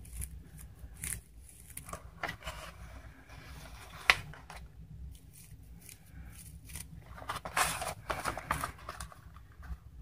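Hands handling a dashboard figure and its cardboard box base on a table: scattered scrapes and clicks, with one sharp click about four seconds in and a longer, louder scraping rustle near the end.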